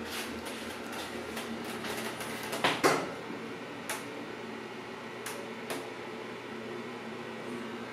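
Elevator cab travelling down its shaft: a steady hum with scattered clicks and rattles, and a louder double knock a little under three seconds in.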